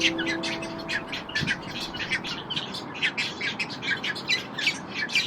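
Small birds chirping, quick high notes several a second, over the last held notes of soft background music, which fade out in the first second or so.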